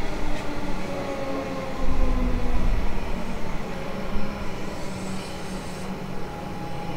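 Melbourne Metro suburban electric train running through the station, its motor whine falling in pitch over the first couple of seconds. The low rumble of the wheels on the track swells for a second or so after that.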